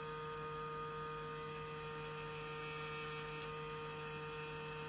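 A steady electrical hum, a low tone with a stronger, higher tone above it, unchanging throughout; one faint tick about three and a half seconds in.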